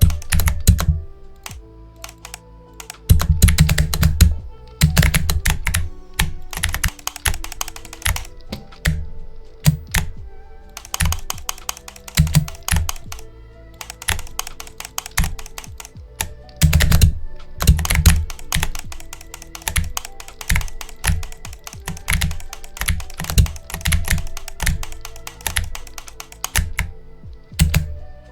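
Rapid keyboard typing played through the Mechakeys app's simulated mechanical-switch sounds: runs of loud clicky keystrokes with short pauses. Background music plays underneath.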